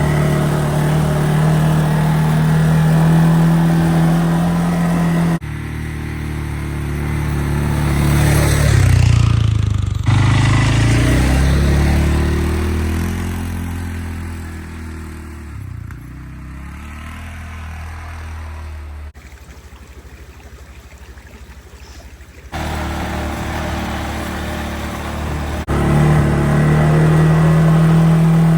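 Motor vehicle engine running, in several short clips cut together. Partway through, the engine note rises and then falls in pitch, as when a vehicle revs and passes. There is a quieter stretch before the steady engine sound returns near the end.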